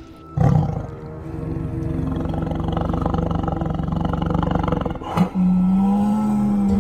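Tiger growling and roaring, a long low rumbling growl that starts suddenly about half a second in, over background music.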